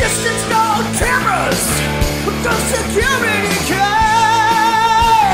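Rock music with a dense, steady band sound; near the end a single high note is held for about a second and a half with a wavering vibrato.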